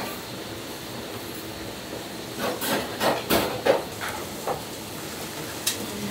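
Light knocks and clatter of hand work at a steel kitchen bench, bunched about two to four seconds in with a few more later, over a steady background hiss.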